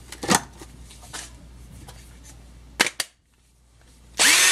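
Sharp plastic clicks as a DeWalt 14.4-volt battery pack is pulled from its charger and snapped into a cordless driver. Near the end the driver's motor spins up with a rising whine.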